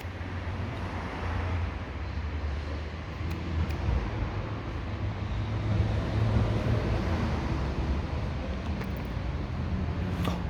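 Steady low rumble of outdoor background noise, like road traffic, slowly getting a little louder.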